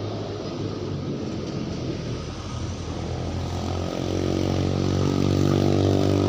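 An engine running steadily, getting louder about four seconds in.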